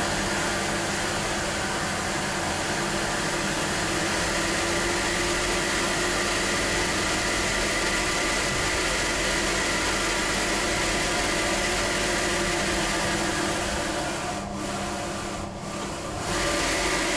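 Air blower of a hands-on exhibit running steadily, keeping a ball floating in its air jet: a rushing hiss with a high, steady whine. Near the end it weakens twice, then picks up again.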